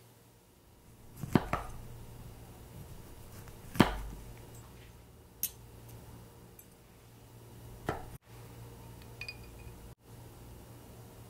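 Kitchen handling sounds: four or five sharp knocks and clinks of glass jars and utensils on a wooden cutting board, a second or two apart, over a low steady hum.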